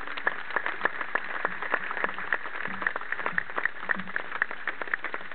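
Crowd applauding: a steady patter of many separate hand claps.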